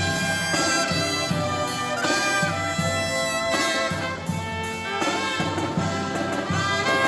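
Live brass marching band playing a tune: trumpets and other brass holding and changing notes over a steady drum beat.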